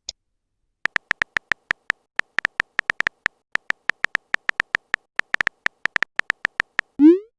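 Texting sound effect: a long run of short, identical electronic beeps, irregularly spaced like taps on a phone keypad, with a quick rising swoop near the end.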